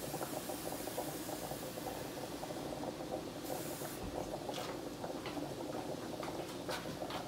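Water heating in an aluminium pot on an electric stove: a steady low hiss with fine crackling as it comes up toward the boil, with a few light clicks in the second half.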